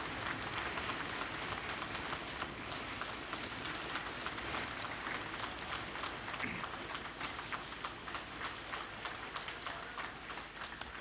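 Assembly members applauding after the result is declared: a dense, irregular patter that eases off a little toward the end.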